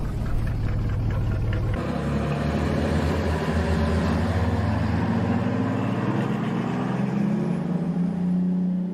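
Background music with sustained low tones that shift every few seconds.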